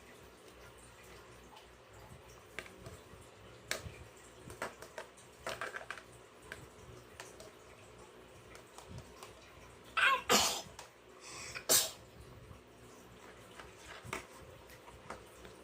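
A young child with flu and a cough sneezes about ten seconds in, with a second short burst about a second and a half later. Faint clinks of toy dishes being washed come before and after.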